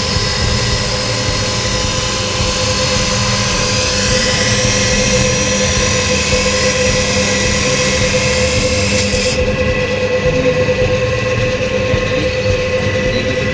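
Steady machine hum: a constant whine over an even rushing noise, with no pauses or changes.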